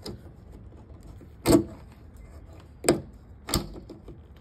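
Three sharp clicks, the first and loudest about one and a half seconds in, as the socket end of a trunk lift-support gas strut is worked by hand at its clip on the ball stud.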